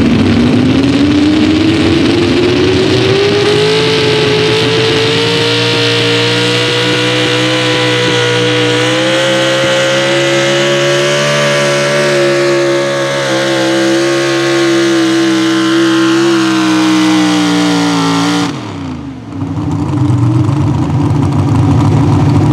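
Pro Stock four-wheel-drive pulling truck's engine revving up at the launch and held at high, slightly wavering revs as it drags the weight sled down the track. About eighteen seconds in the revs drop sharply as the driver lets off, and the engine then runs low and steady at the end of the pull.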